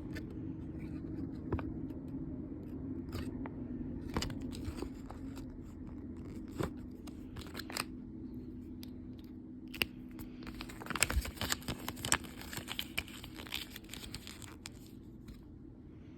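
Toy packaging being torn open and crinkled by hand: scattered crackles and clicks that grow dense about ten seconds in, over a low steady hum.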